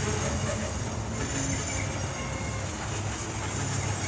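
CN freight train running, a steady low rumble with rolling noise and no sudden events.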